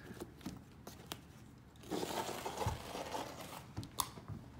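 Utility-knife blade cutting through carpet padding along the tack strip, a rough tearing, crinkling sound, with a few sharp ticks.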